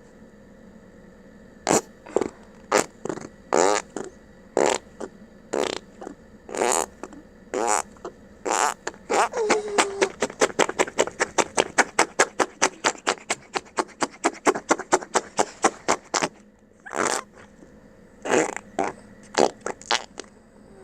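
Fart-noise putty squished down into its plastic tub, letting out a string of wet fart noises. The first ones come at irregular intervals, then a quick run of about four or five a second lasts several seconds, then a few more single ones follow.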